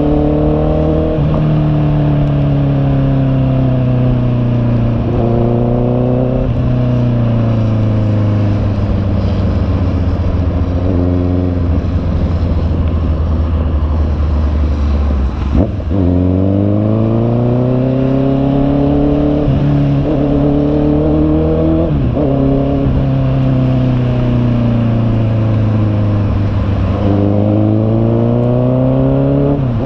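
Honda CB650R's inline-four engine running, its pitch climbing and falling again and again, with several abrupt drops in pitch.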